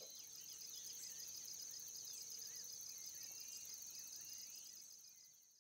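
A steady, high-pitched chorus of trilling insects, with scattered short chirps over it, fading out near the end.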